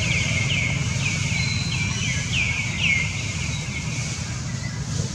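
Animal calling: a quick series of short, high chirps, each dropping in pitch, about two or three a second, that stop about three seconds in. Under them runs a steady low background rumble.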